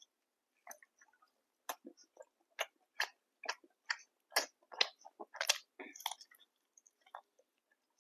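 Close-miked chewing of food: a run of short, sharp mouth noises, about one or two a second, thickest in the middle.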